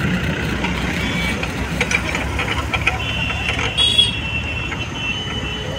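The hydraulic power unit of an HDPE butt-fusion welding machine runs steadily. A high, steady whine comes in about three seconds in, as the control lever is worked.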